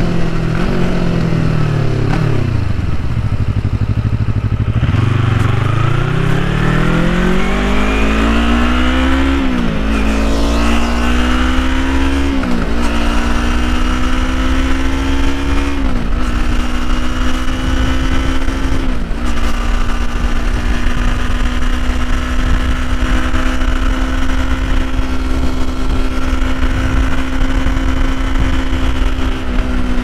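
Yamaha MT-25/MT-03 parallel-twin engine through an open 'hole' exhaust, heard from the rider's seat. The revs fall over the first few seconds as the bike slows, then climb under acceleration. The bike shifts up four times in quick succession, each shift a sharp dip and recovery in pitch, and then holds a steady cruise, with wind noise over the engine.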